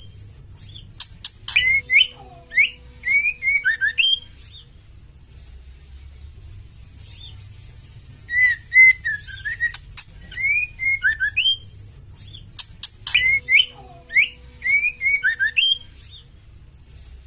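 Female white-rumped shama calling in three bouts. Each bout is a few sharp clicks followed by a run of short whistled notes that rise and fall, with several quiet seconds between bouts.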